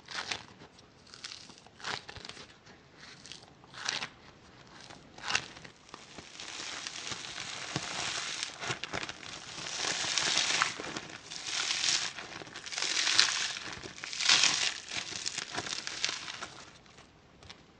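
Monkey foam, a crunchy foam-bead modelling compound like floam, crackling and crunching as hands squeeze and pull it apart. Scattered crackles at first, then denser, louder waves of crackling from about six seconds in.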